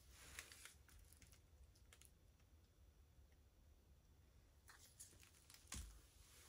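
Near silence, with a few faint clicks and taps from paint cups and a stir stick being handled, and a soft thump near the end.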